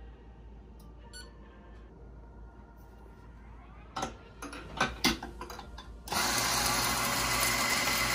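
Eureka Atom Specialty 75 flat-burr espresso grinder running steadily from about six seconds in, grinding coffee into a portafilter. Just before it, a few knocks and clatters as the metal portafilter is seated in the grinder's holder.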